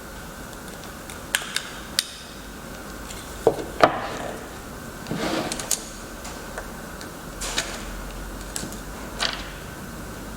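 Irregular light knocks and clicks of small hard objects being handled and set down, with a brief scraping rustle about five seconds in.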